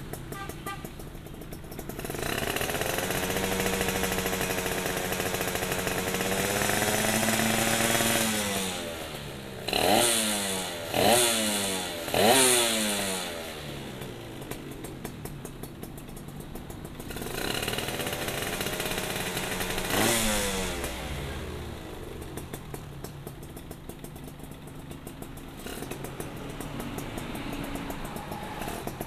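Suzuki Satria 120 two-stroke single-cylinder engine, breathing through an aftermarket CMS underslung exhaust, idling and being revved in place. It is held up for several seconds, given three quick throttle blips, revved once more and left to idle again.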